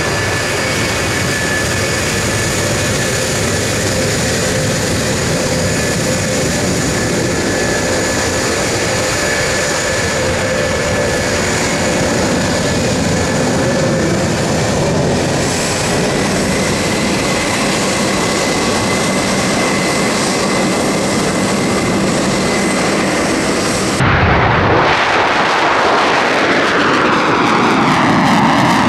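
RF-4E Phantom II's two J79 turbojets running as the jet taxis: a steady roar with a high whine. About 24 s in it cuts to a pair of F-4 Phantoms flying past, a louder jet roar with tones sweeping downward as they go by.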